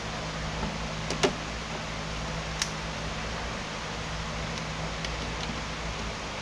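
Sharp clicks of gloved hands handling parts in a tractor's engine bay, two close together about a second in and one more shortly after, over a steady low hum.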